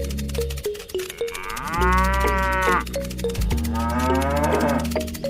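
A cow mooing twice, one long arched call and then a shorter, fainter one, over background music with a steady repeating beat.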